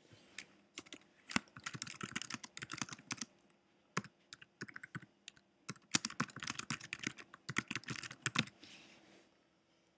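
Typing on a computer keyboard: two quick runs of keystrokes, the first starting about a second in and the second around six seconds in, with a short pause between.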